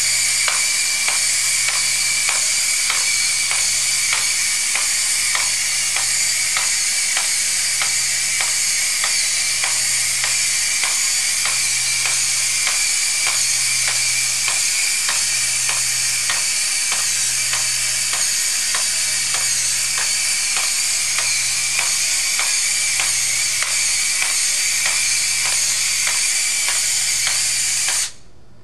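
Small quadruped walking robot trotting on a hard tile floor: its servo motors keep up a steady hissing whir, with its feet ticking about twice a second and a low hum that swells and fades about once a second. The sound cuts off abruptly near the end.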